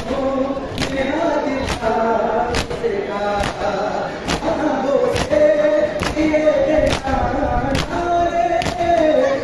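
Male voices chanting a noha, a Shia mourning lament for Muharram, over the sharp slaps of hands beating on chests (matam), struck together in a steady rhythm a little more than once a second.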